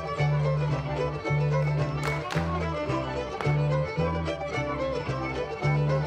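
Live old-time string band playing a fiddle tune for a contra dance: the fiddle leads over a steady bounce of alternating bass notes.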